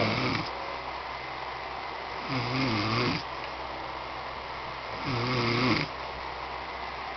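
Man snoring heavily in his sleep: the tail of one snore at the start, then two full snores, each about a second long and about two and a half seconds apart.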